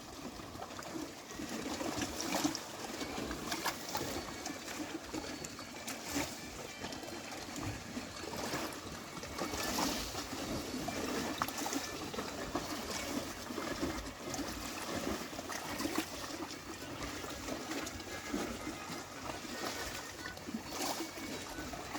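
Small sea waves lapping and splashing at the shore: a continuous wash of moving water with a brighter splash every second or few.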